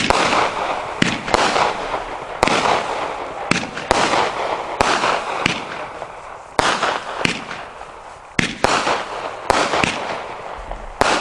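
A 25-shot, 200-gram consumer firework cake firing shot after shot, about one every half second to a second, each a sharp launch bang trailing off into a fading hiss.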